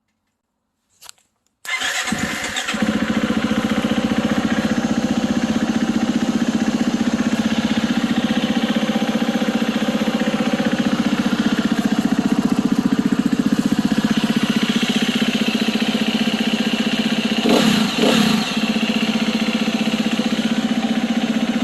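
A 2018 Husqvarna FE350's 350 cc single-cylinder four-stroke engine catches on the electric starter and runs at a steady idle, with a brief rise and fall in revs near the end. It fires only with the wire bundle from the ignition key barrel scrunched up, which the owner takes for a frayed wire in that bundle.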